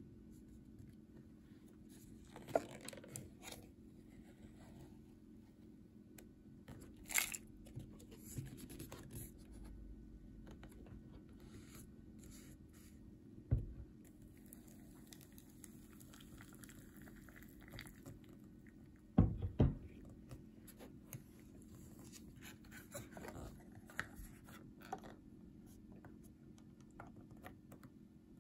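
Paper lid of a cup noodle cup peeled back with crinkling and tearing, with a few sharp knocks and clicks of the cup on a wooden table. Hot water is poured into the cup with a soft hiss about halfway through, and the lid is then pressed back down near the end.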